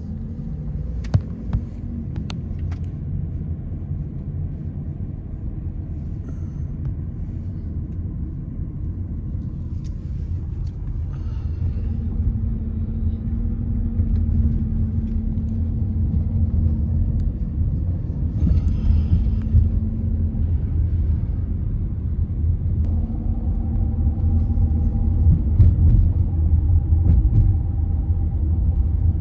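Steady low road and engine rumble of a vehicle driving, heard from inside the cab, growing slowly louder. There are a few sharp clicks about a second in.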